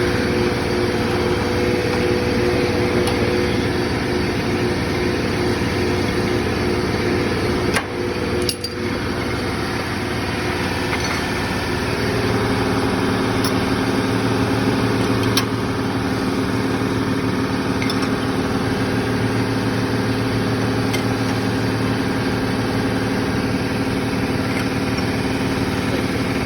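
Belt-driven Vilter refrigeration compressor on an R22 low-temperature skid running steadily after start-up, a hum with several steady tones. There is a brief knock about eight seconds in, and the pitch of the tones shifts a few seconds later.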